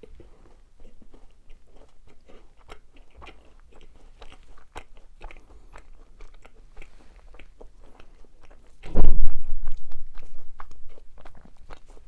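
Macarons eaten close to the microphone: small crisp crunches and clicks of biting and chewing. About nine seconds in there is a much louder, heavier crunch that dies away over a second or two.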